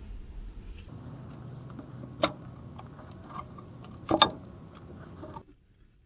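Metal hand tools clinking and tapping against metal while working on the truck's rear differential, with scattered light clicks and two sharp metallic knocks, about two and four seconds in.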